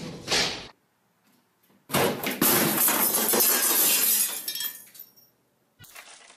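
A sheet of glass shattering about two seconds in, followed by a few seconds of ringing and clinking shards that die away.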